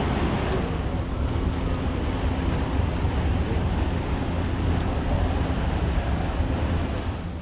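An engine running steadily, a low rumble under wind noise on the microphone.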